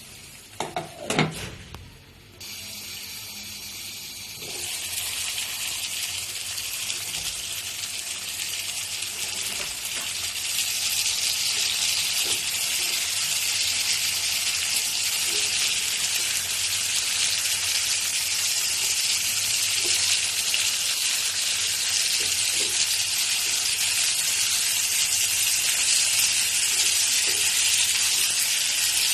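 Halved tomatoes and garlic sizzling in hot oil in a covered frying pan: a steady hiss that grows louder over the first ten seconds or so, then holds. A brief louder sound comes about a second in.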